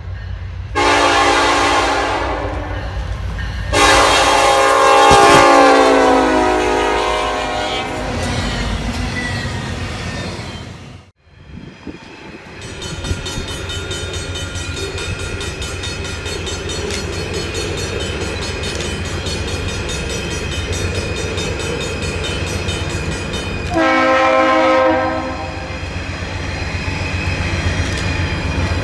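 Diesel locomotive air horn sounding two chord blasts as the train runs by, the second one longer and falling in pitch. After a brief gap, a diesel-hauled train runs steadily on its approach and gives one short horn blast near the end.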